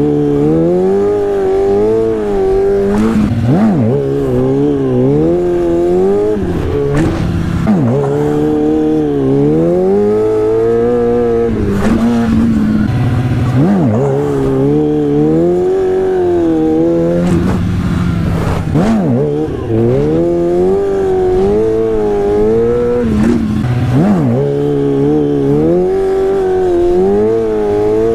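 Motorcycle engine revving again and again for wheelies, its pitch climbing and dropping back every few seconds.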